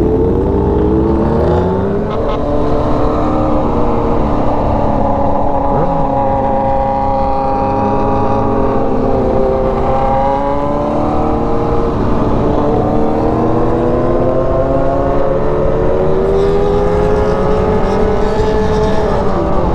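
Sport motorcycle engine running under way, its pitch rising and falling as the throttle is opened and eased, with a quick drop in revs near the end, over steady wind and road noise.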